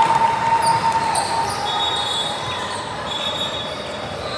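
Basketball game in a gym: a ball bouncing on the court over a steady din of voices echoing in a large hall, with a few thin, high squeaks.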